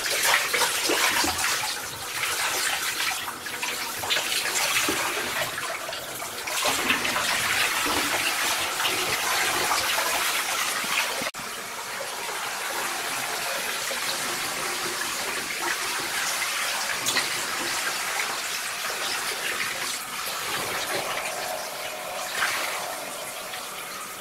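Handheld shower spray running, water splashing onto soaked clothing and into a bathtub of standing water. The level drops abruptly about eleven seconds in, then the running water goes on a little quieter.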